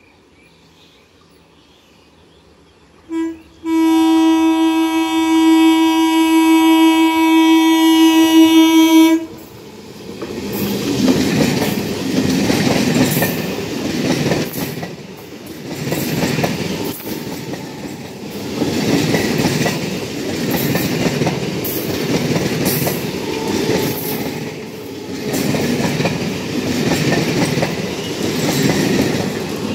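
An Indian Railways EMU local train sounds its horn, a short toot about three seconds in followed by one long, steady blast of about five seconds that cuts off suddenly. The train then runs past close by, its wheels clattering over the rail joints in a rumble that swells and fades every two seconds or so.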